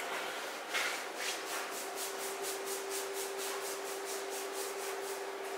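Hands rubbing quickly back and forth over the bare skin of a person's back in a friction massage, about four strokes a second.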